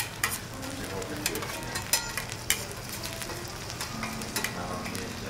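Sliced garlic and a Kobe beef sirloin steak sizzling on a hot steel teppanyaki griddle, with a metal spatula scraping and clicking against the plate as the garlic is stirred.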